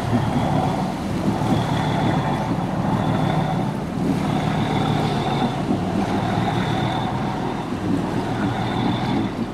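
Engine of a small inshore fishing boat running steadily as it motors slowly out under way.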